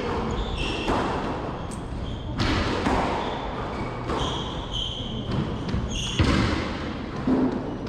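Squash rally: the ball cracks off racket and walls, with the loudest hit about six seconds in. Court shoes squeak briefly several times between the hits.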